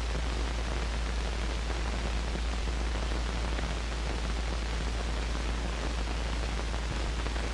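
Steady hiss with a strong low hum, the background noise of an old optical film soundtrack, unchanging throughout.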